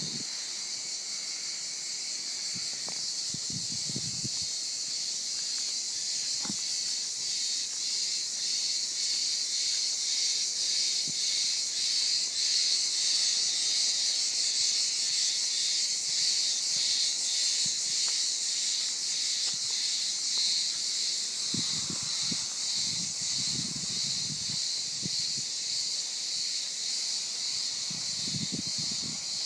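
A dense chorus of cicadas: a loud, steady high hiss with a regular pulse, swelling louder in the middle. There are a few low thumps now and then.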